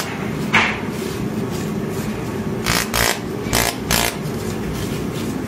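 Laser welding machine running with a steady hum, broken by about five short, sharp snaps of weld pulses as a thin metal strip is tacked to a sheet, most of them bunched in the middle.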